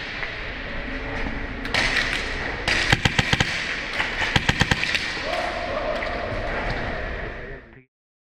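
Airsoft guns firing: sharp cracks in quick runs of several shots about three seconds in and again about four and a half seconds in, with a single crack just before. A steady tone sounds for about two seconds near the end, then all sound cuts off.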